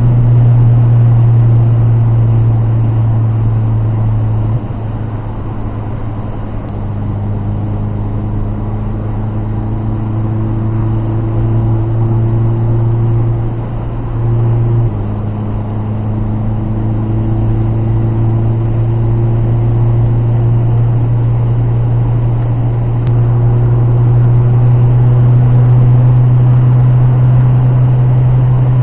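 Lada Niva 1.7-litre four-cylinder engine and road noise heard from inside the cabin while cruising on the highway: a steady low drone. Its pitch slowly climbs and then drops back a couple of times as the speed changes, and it gets louder at about the halfway point and again later on.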